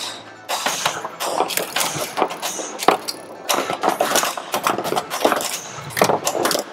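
Williams White Water pinball machine in multiball play: rapid clacks of flippers, bumpers and balls striking targets, over the game's own music and sound effects.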